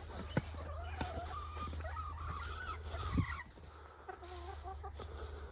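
Domestic hens clucking and murmuring softly in wavering, drawn-out calls, with a few short high chirps.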